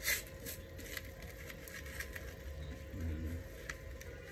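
Soft rustling and crinkling of a disposable diaper's paper-and-plastic sheet being unfolded and smoothed flat by hand, with a sharper rustle right at the start. A brief low vocal sound comes about three seconds in.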